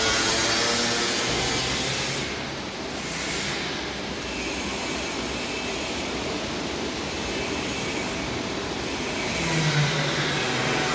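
CARPATHIAN SM 110 sawmill running, a steady mechanical noise that holds throughout with small changes in level.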